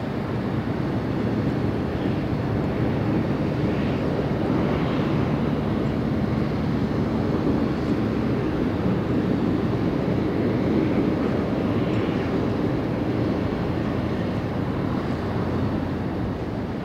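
Steady low mechanical drone with a hiss over it, from a docked submarine's diesel engine running to charge its batteries.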